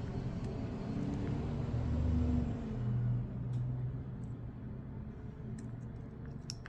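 Hot air gun running with a low hum and hiss, softening adhesive for a phone repair; it fades out after about three seconds, followed by a few light clicks of tools.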